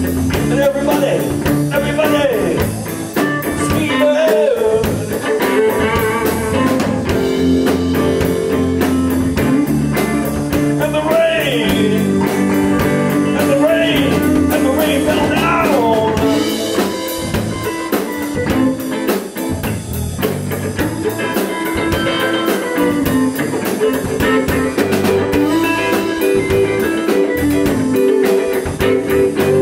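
Live blues-rock band playing: electric guitars, bass guitar and drum kit. A lead part slides up and down in pitch twice, near the start and around the middle.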